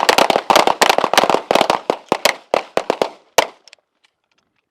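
A line of shooters firing handguns together: many overlapping sharp shots over about three and a half seconds, thinning to a few last single shots near the end.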